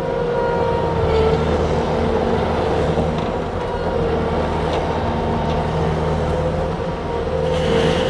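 Bobcat S770 skid steer's Kubota V3800 four-cylinder turbo diesel running steadily as the machine drives and turns, with a steady whine over the engine rumble.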